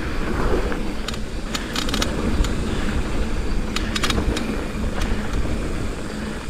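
Mountain bike riding a dirt trail: steady rumble of wind on the microphone and tyres on the ground, with short bursts of rattling clicks from the bike as it goes over bumps, a few times.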